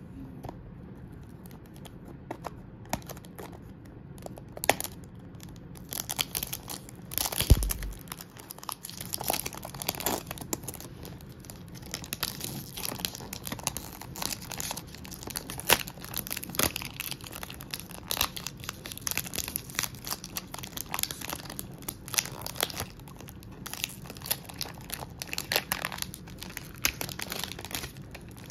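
Clear cellophane overwrap on a perfume box being picked at, torn open and peeled off: irregular crinkling and crackling, with a dull thump about seven seconds in.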